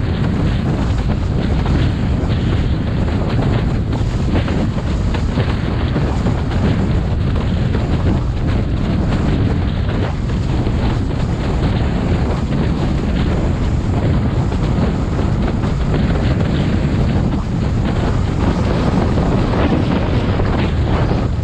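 Wind buffeting a GoPro action camera's microphone as a slalom windsurf board planes over the water, with water rushing and slapping under the board. A steady, heavy rumble with no let-up.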